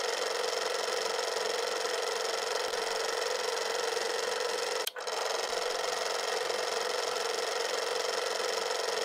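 Old film projector running, with a fast, steady mechanical clatter; it drops out for an instant about five seconds in.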